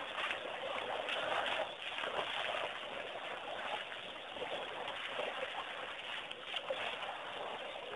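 Wet trickling and sloshing of mud and water as a baby elephant wallows at a muddy waterhole, over a steady hiss with faint scattered crackles.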